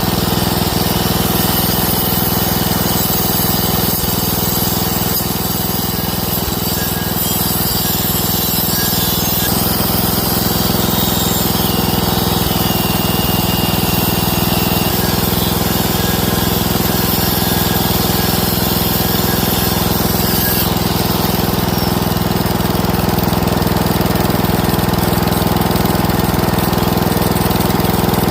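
Small engine running steadily, with a noisy mechanical hiss above it; the tone shifts about ten seconds in and again about twenty seconds in.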